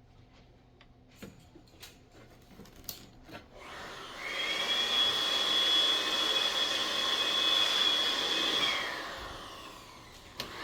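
A few faint clicks and taps, then a high-speed electric motor spins up about four seconds in, runs steadily with a high whine over a rush of air for about five seconds, and winds down near the end.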